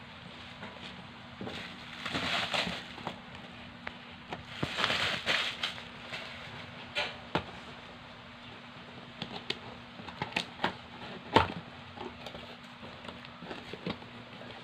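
Packaging being handled: plastic bubble wrap and a cardboard box rustling and crinkling in two bursts, then several sharp taps and clicks as the box is handled and its flap opened.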